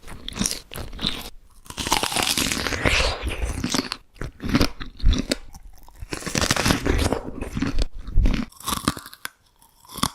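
Close-miked crunching bites and chewing in several long bursts, dense with fine crackles, broken by short pauses, with a longer lull near the end.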